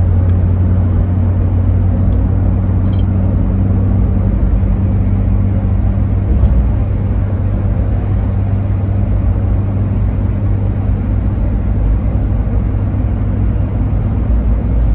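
Steady low drone of engine and road noise heard from inside a moving car's cabin, with a few faint clicks in the first few seconds.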